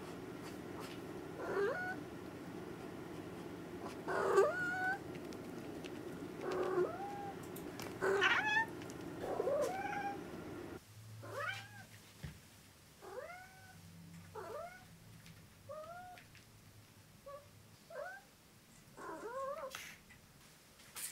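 A domestic tabby cat meowing over and over: about a dozen short meows, one every second or two, each sliding upward in pitch.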